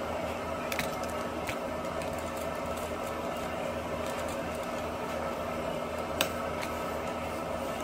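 Steady mechanical hum, with a few light clicks of a fork scraping roasted spaghetti squash on a foil-lined tray; the sharpest click comes about six seconds in.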